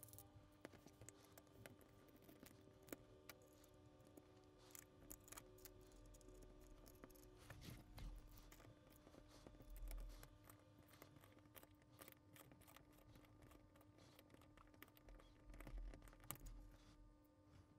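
Faint clicks and light taps of small metal parts as a Shimano Tranx 500 baitcasting reel is reassembled: the handle is fitted onto its shaft and the handle nut is gripped with a pliers wrench. A faint steady hum runs underneath.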